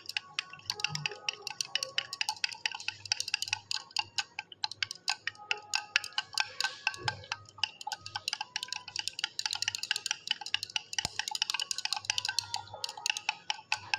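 Glass stirring rod clinking rapidly and continuously against the inside of a glass beaker, with short glassy rings, while stirring milk that has been acidified with acetic acid to curdle out its casein.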